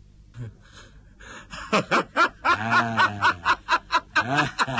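A man laughing in rapid, rhythmic bursts that begin about a second and a half in, after a short quiet moment.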